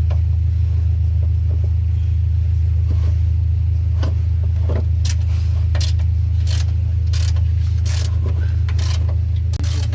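A car engine runs steadily at idle with a loud low rumble, with sharp clicks or knocks now and then in the second half.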